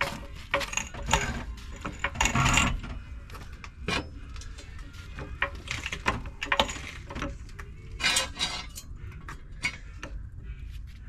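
Irregular metallic clacking and knocking from the front axle of a Mercedes Vito W639, a few louder knocks among lighter clicks over a low rumble. It is the rattle of worn-out front control arms whose joints have gone loose.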